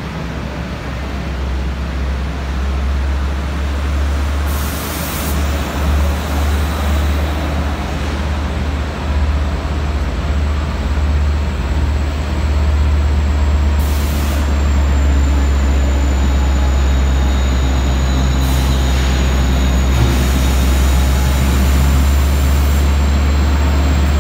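LIRR diesel push-pull train of C3 bilevel coaches rolling into the station and coming to a stop, with a steady low drone throughout that grows louder. Several hisses of air from the brakes, about five, fourteen and eighteen seconds in, the last running for several seconds, and a thin high whine from about halfway on.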